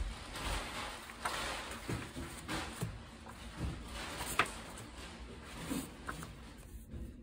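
Loose paper notecards being handled and leafed through: soft, uneven rustling with a few sharp flicks of card, the sharpest about four seconds in.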